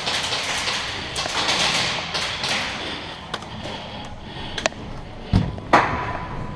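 Footsteps and gear rustling on steel-grating stairs and walkway, with a few sharp knocks and two heavier thuds about five seconds in.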